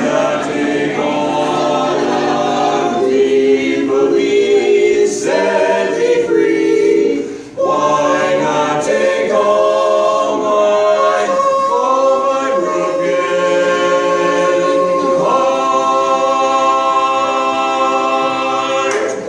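Barbershop quartet of four male voices singing a cappella in close harmony, with a brief break about seven and a half seconds in, ending on a long held final chord.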